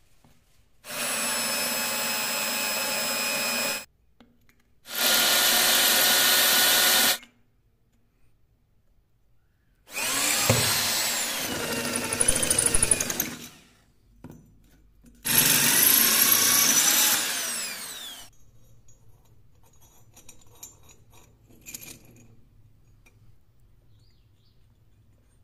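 Electric drill with a twist bit boring holes in mild steel: four separate runs of a few seconds each. The motor whine holds a steady pitch in the first two runs and rises and falls in the last two as the bit loads up in the cut. Faint light clicks follow near the end.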